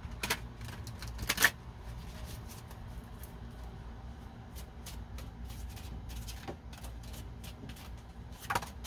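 Oracle cards being handled and laid down: a scatter of light clicks and taps, the sharpest about a second and a half in, over a steady low hum.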